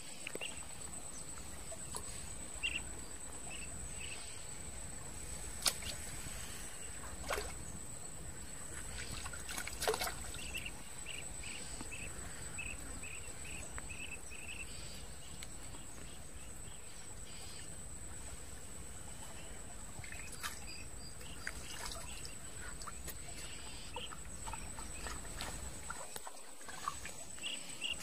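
Outdoor ambience: a steady, thin, high-pitched whine, with runs of short repeated chirps and a few sharp clicks and taps.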